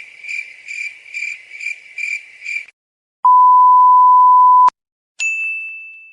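A sequence of sound-effect clips: cricket-like chirping, about two chirps a second, that stops a little before halfway. Then a loud, steady censor bleep held for about a second and a half and cut off sharply, and then a single ding that rings and fades.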